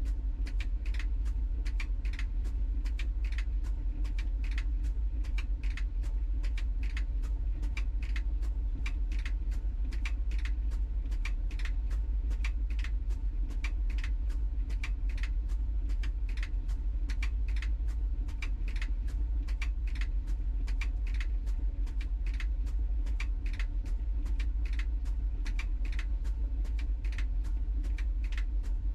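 LG TROMM WashTower tumble dryer running mid-cycle: a steady low rumble from the turning drum, with light clicks about twice a second from the tumbling load.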